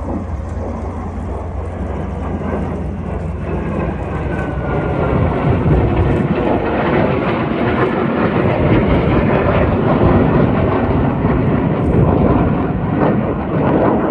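Jet engine noise from a pair of fighter jets flying over in formation, building about four seconds in and staying loud.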